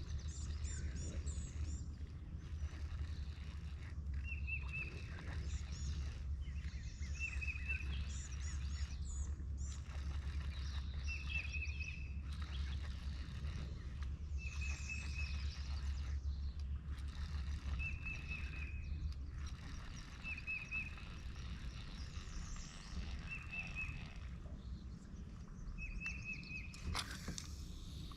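Birds calling by the creek: one bird gives a short chirp about every three seconds, with other higher chirping in the first part. Under it runs a steady low rumble that fades out about two-thirds of the way through. A brief louder rustle comes near the end.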